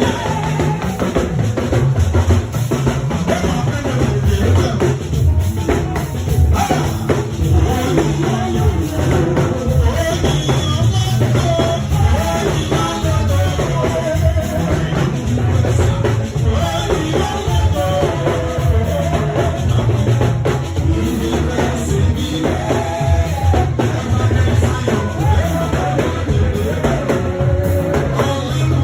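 Gospel band music with a drum kit and bass keeping a steady beat under singing.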